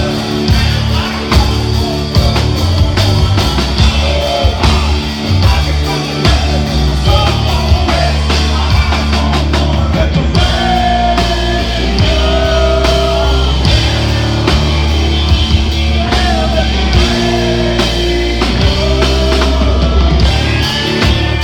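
Live rock band playing loud, with electric guitars and drums under a male lead vocal singing a melody in phrases.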